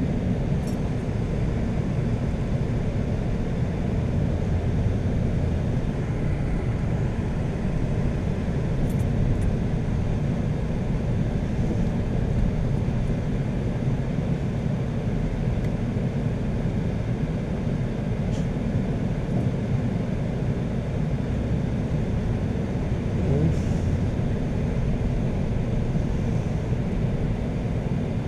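Steady low engine and road rumble of a car driving slowly, heard from inside the cabin, with a few faint ticks.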